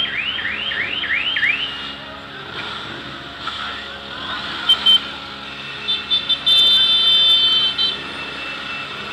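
Motorcycles riding off past the camera with their engines running. Horns sound over them: a siren-like rising whoop repeated about three times a second in the first two seconds, two short beeps about five seconds in, and a long, loud horn blast from about six to eight seconds.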